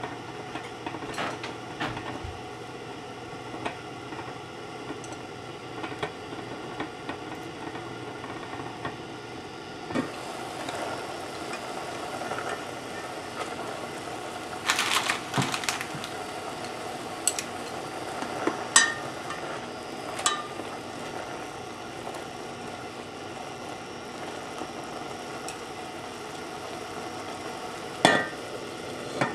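Instant ramen noodles simmering in broth in a covered stainless pan, a steady bubbling. A glass pot lid clinks against the pan a few times, with the loudest clanks near the end as it is set back on.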